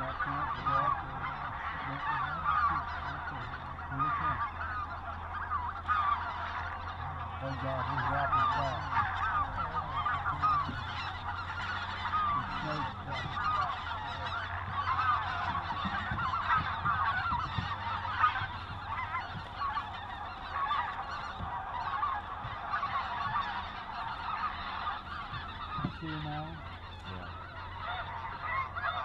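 A large flock of snow geese calling overhead: many high honks overlapping in a continuous clamor with no break.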